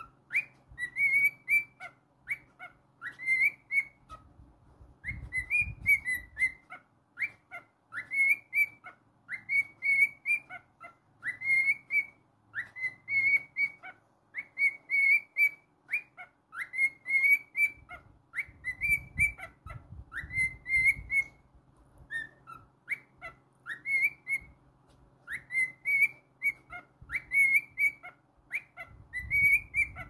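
Male cockatiel whistling its song: short rising whistled notes strung into phrases of a second or two, repeated again and again with brief pauses between.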